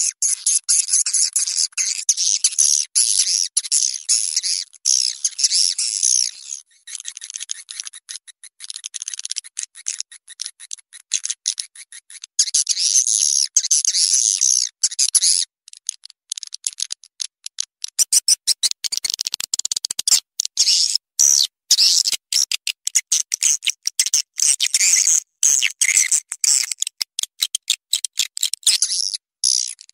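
Swiftlet call sound, a mixed recording of swiftlet chirps used to lure swiftlets into a nesting house: dense, rapid high-pitched twittering. About two-thirds of the way through it turns into sharper, clicking chirps.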